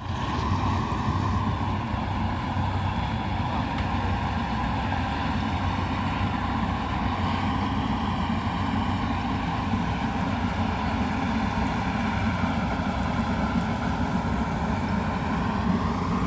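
Yanmar YH850 rice combine harvester's diesel engine running steadily.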